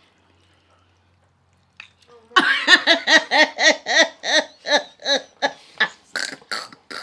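A person laughing hard, a couple of seconds in, in a long run of rhythmic 'ha' pulses about four a second, trailing off into breathy gasps near the end.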